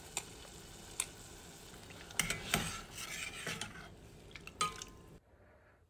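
Metal ladle stirring soup in a stainless steel saucepan, clinking against the pot several times over a steady hiss. The sound cuts off suddenly about five seconds in.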